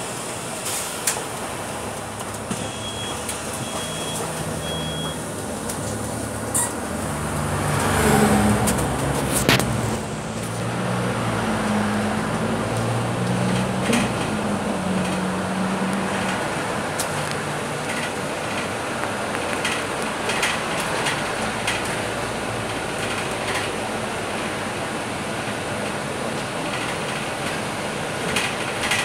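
Scania K310UB city bus heard from inside: three short high beeps a few seconds in, a loud hiss of air around eight seconds, then the diesel engine pulling away and accelerating through its gears, its pitch stepping up and dropping at each shift before settling into steady running.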